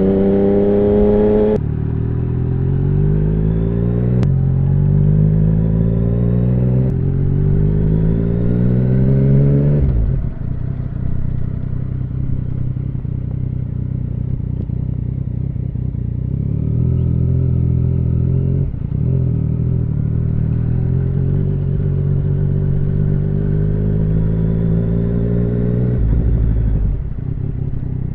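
2017 Yamaha MT-09's inline-three engine through an Akrapovic full Racing Line carbon exhaust, accelerating through the gears. The engine pitch climbs and drops back at each of about three upshifts. About ten seconds in the throttle eases and the engine runs at a lower, steadier pitch, then picks up again near the end.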